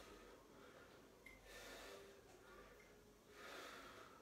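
Near silence with a man's faint, slow breathing, about three soft breaths, as he holds a stretch.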